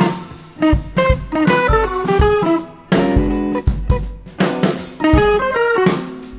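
Background music: a guitar melody over drums.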